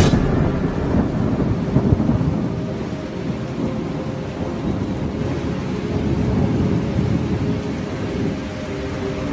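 Low rolling thunder rumbling over rain, with a louder peak about two seconds in.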